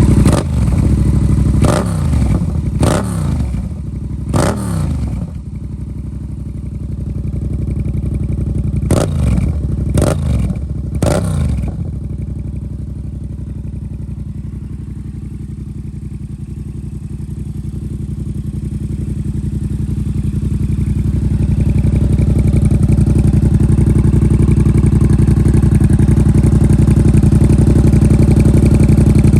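2018 Yamaha MT-07's 689 cc parallel-twin engine running through a full aftermarket exhaust system, idling with sharp throttle blips: four quick revs in the first few seconds and three more around ten seconds in. It then settles into a steady idle that grows louder toward the end.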